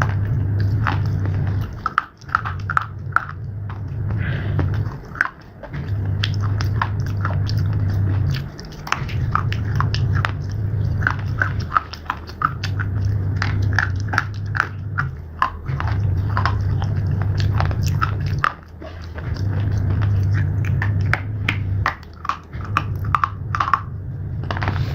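Close-miked biting and crunching of slate pieces: many sharp, irregular cracks and crunches of chewing, over a low hum that comes and goes in stretches of a couple of seconds.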